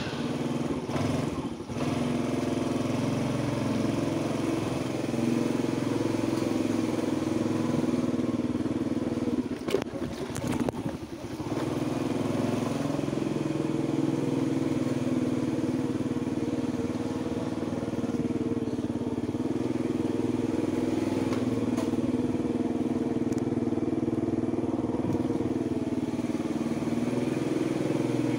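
Small motorbike engine running steadily at low speed while being ridden. A few short knocks and dips come around ten seconds in.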